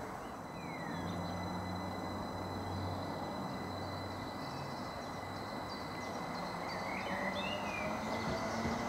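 Class 333 electric multiple unit approaching on the line: a low steady hum that grows slowly louder, with a whine rising in pitch near the end. A few short bird chirps over it.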